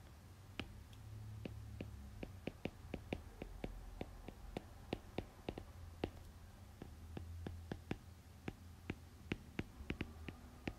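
Stylus tapping and clicking against a tablet screen during handwriting: a string of sharp, irregular clicks, about two to four a second, over a faint low hum.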